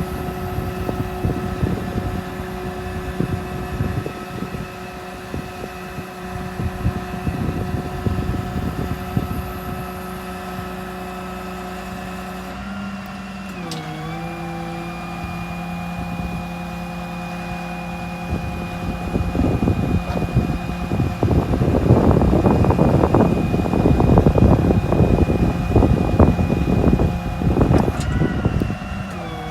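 The 6.7 Cummins diesel in a Ram 5500 running steadily with a steady whine over it. The pitch dips and settles about halfway through, as if a load came on, and again near the end. In the second half a louder stretch of rough, rushing noise rises over the running engine.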